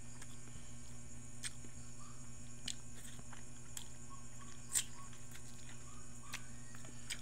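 A person eating fried dried fish (daing) with their fingers: irregular sharp crunches and mouth clicks about once a second, over a steady low electrical hum.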